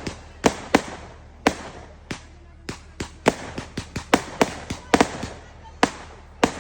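Fireworks going off: an irregular series of sharp bangs, coming several a second at times, each trailing off with an echoing tail.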